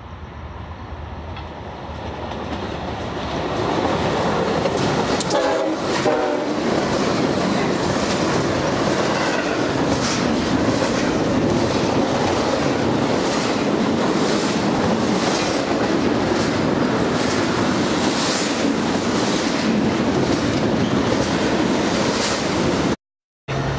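Freight train, a BNSF double-stack train, approaching and passing at speed close by: it grows louder over the first few seconds, then keeps up a steady rumble of wheels with a rhythmic clickety-clack. A short horn note sounds about five seconds in. The sound cuts off abruptly just before the end.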